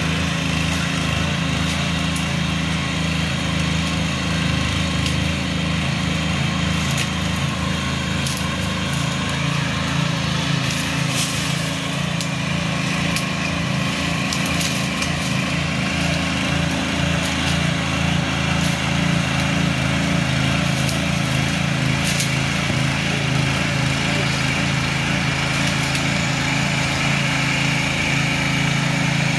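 A power weeder's 7 hp petrol engine running steadily under load as its rotary tines till dry, sandy soil, with a few short clicks scattered through.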